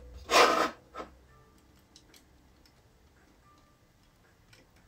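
A short scrape of a hand tool on a chainsaw crankcase half as old gasket material is worked off its mating face, then a single click and a few faint ticks of the tool against the case.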